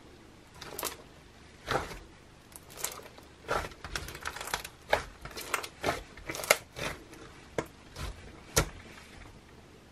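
Slime being squeezed and kneaded by hand, giving off irregular crackling pops, one to three a second. The loudest pops come about six and a half and eight and a half seconds in.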